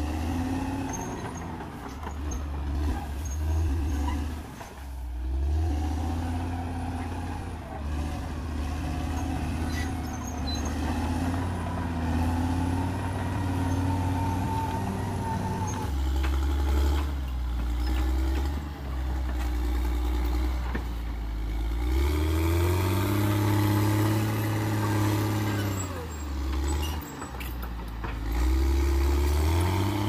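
Caterpillar D6R XL bulldozer's diesel engine working as the dozer pushes brush and felled trees, its revs rising and falling several times, with one long climb in revs about two-thirds of the way through.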